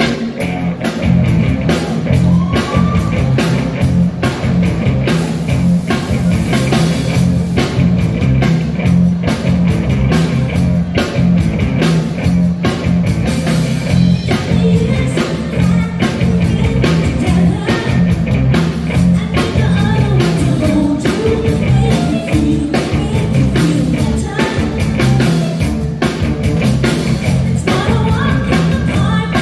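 Live amplified rock band playing a pop-rock song: a woman singing lead over electric guitars, bass guitar, keyboard and a drum kit keeping a steady, busy beat with heavy bass.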